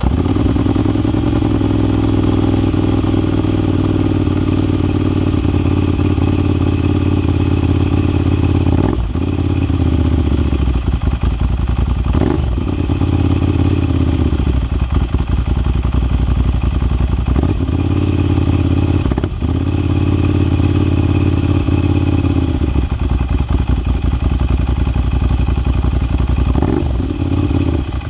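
Ducati Monster 796's air-cooled L-twin running at idle, with a few brief throttle blips that rise and fall in pitch.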